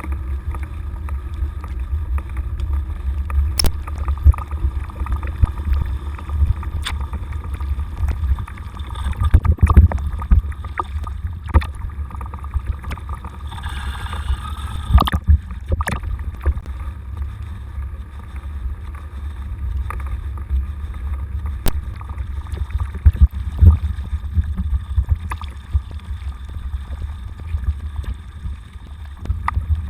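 Bicycle riding slowly through soft snow: a steady low rumble of wind and ride vibration on the microphone, with scattered clicks and rattles from the bike and a brief hiss about halfway through.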